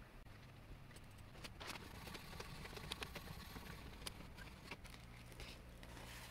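Faint clicks and short rattles from a home inkjet printer as its scanner lid is lifted and the machine is handled, over a low steady hum.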